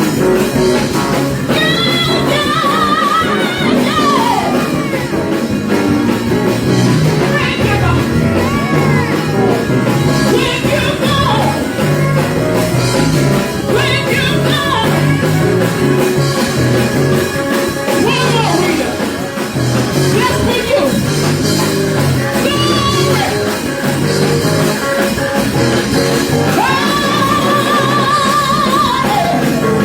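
Loud band music with a steady beat, drums and guitar, and a voice singing over it with wavering held notes, one long held note near the end.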